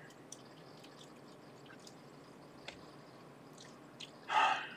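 Faint clicks and rustles of hands handling a small circuit board and its wires, with one short, louder rasp near the end.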